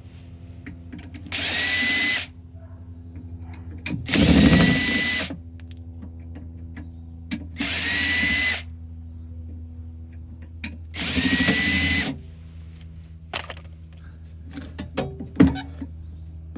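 Cordless drill-driver running in four short bursts a few seconds apart, each with a brief rising whine as the motor spins up, backing out the screws of the tow-hitch block plate. A few sharp clicks follow near the end.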